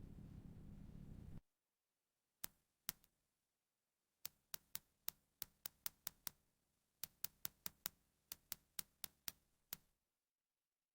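A low steady hum cuts off about a second in. Then come two sharp clicks, and two runs of evenly spaced sharp mechanical clicks at about three a second.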